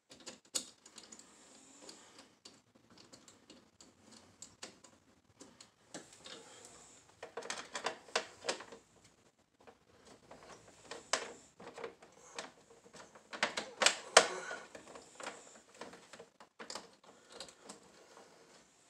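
Irregular light clicks, taps and scrapes of a hand and tools working a wire into a circuit breaker's terminal in a metal breaker panel, coming in a few denser clusters.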